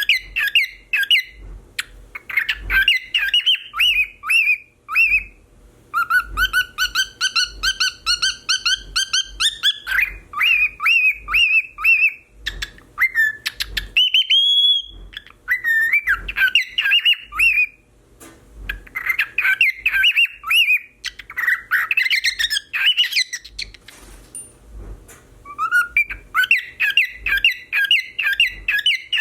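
Cockatiel whistling an imitation of a car alarm: runs of fast repeated whistled notes at several per second, switching between patterns the way a car alarm cycles through its tones, with short pauses and one long rising whistle about halfway through.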